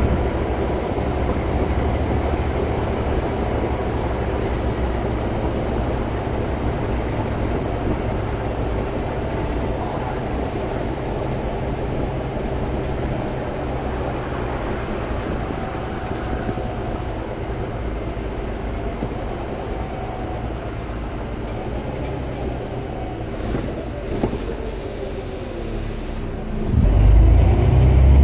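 Scania OmniCity bus's five-cylinder diesel engine and cabin rumble heard from inside the saloon, running steadily and easing a little through the middle. Near the end the engine note rises sharply and loudly as the bus accelerates.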